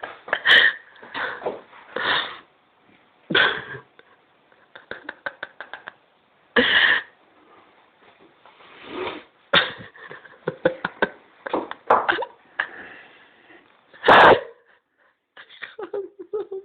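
A person hiccuping and coughing in a string of loud, sudden bursts, with runs of quicker, fainter short sounds between them.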